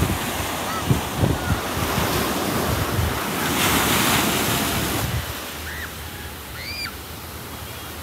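Wind buffeting the microphone in gusts over the steady hiss of ocean surf; a wash of surf swells about three and a half seconds in and fades a second and a half later, and the gusts ease in the second half.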